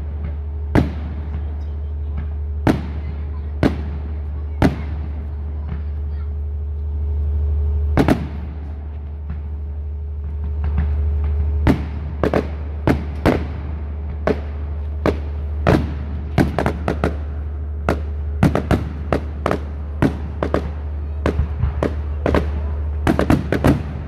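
Aerial firework shells bursting, with bangs every second or two at first. From about halfway they come much faster, and near the end in a dense run. A steady low rumble runs underneath.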